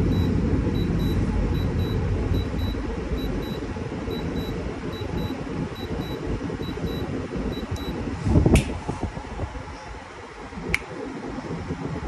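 Kenmore 8000 BTU window air conditioner running with a steady low hum while its control panel beeps over and over, about two beeps a second, as a button is held and the numbers scroll. The beeping stops about eight seconds in, followed by a loud knock and a sharp click a couple of seconds later.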